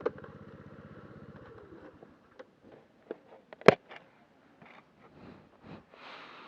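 Motorcycle engine idling, then switched off and winding down about a second and a half in. Faint handling clicks follow, with one sharp knock near the middle.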